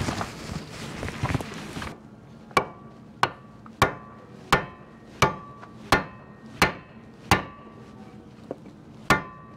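Hammer blows on a wooden block held against a bronze propeller hub, driving the propeller onto its tapered shaft. About nine evenly paced strikes, roughly one and a half a second, begin about two seconds in, after some rustling; each ends in a short metallic ring.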